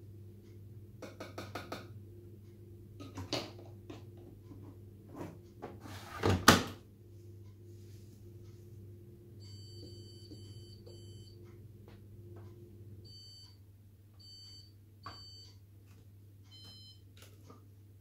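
Hoover Dynamic Next washing machine's control panel giving short high electronic beeps in quick groups, as its buttons are pressed. Before the beeps come handling clicks and knocks, with one loud thump about six seconds in.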